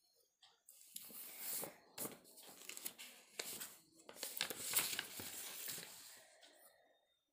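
Sheets of drawing paper being handled and pulled away, rustling and crinkling in two long stretches with sharp crackles.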